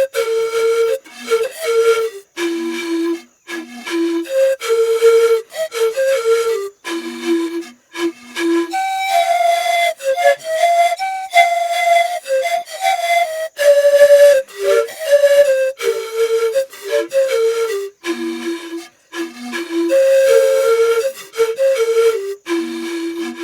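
Music: a melody played on a flute-like wind instrument in short, separated notes. The phrase climbs higher and runs more smoothly through the middle, then the opening phrase returns near the end.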